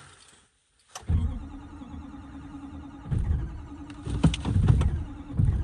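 A cold diesel pickup truck's starter cranking the engine hard in 20-degree weather after the glow plugs have warmed. Cranking begins about a second in and turns over without catching, with heavier uneven surges from about three seconds in: a hard cold start.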